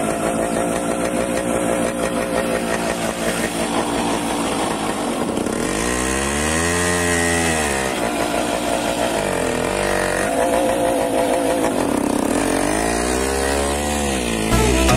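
Yamaha motorcycle engine running hard under load as the bike is forced up a dirt mound, its pitch sweeping up and back down twice as the throttle is opened and closed.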